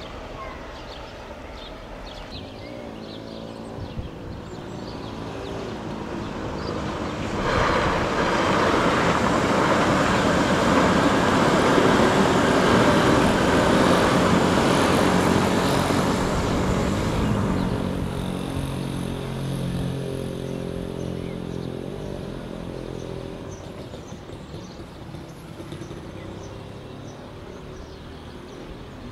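Electric train passing: the sound swells over a few seconds, comes in loud and rushing with a low motor hum for about ten seconds, then fades away.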